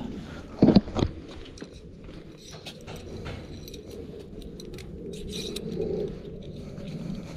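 Two sharp metal knocks about a second in, then light clinking and scraping as a long steel engine-mount bolt is handled.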